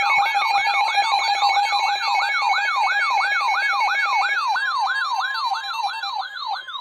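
Electronic siren-like alert tone opening an emergency alert broadcast: a loud tone sweeping rapidly up and down, nearly three times a second, over steady held tones.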